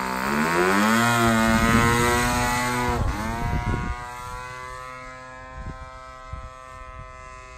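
PAW 1.49 cc model diesel engine running on a hand-launched radio-control model plane: a loud, buzzing note that rises in pitch in the first second as the plane is thrown. The pitch dips sharply about three seconds in, then the sound fades steadily as the plane flies away.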